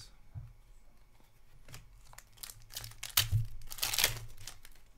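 Foil trading-card pack wrapper crinkling and crackling as it is handled and torn, with a run of sharp crackles that is loudest around three to four seconds in.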